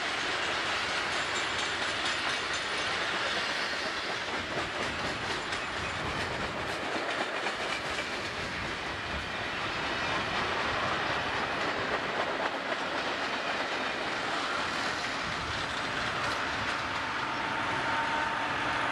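Freight train cars rolling past at speed close to the track: a steady noise of steel wheels on rail with repeated clicking of wheels over the rail joints.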